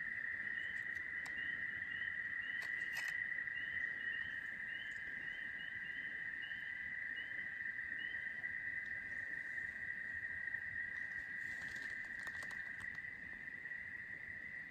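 Night-time insect chorus: a steady, high, continuous trill of crickets, joined for the first half by a higher chirp repeating about twice a second. A few soft rustles come near the end.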